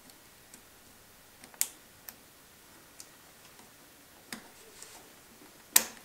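A handful of sharp metallic clicks and taps, spread out, from a steel circlip and hand tools being worked onto a dirt bike's countershaft against the front sprocket; the loudest click comes near the end.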